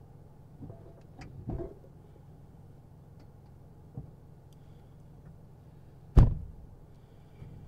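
Heard from inside a car: the steady low hum of the idling car, a few soft knocks and bumps from behind about a second and a half in, then about six seconds in a single loud slam at the back of the car as it is shut.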